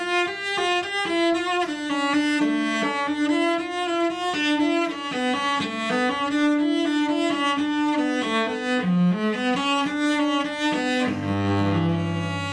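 Solo cello, bowed: a quick run of notes circling a repeated higher note, then a low note held from about eleven seconds in and left ringing.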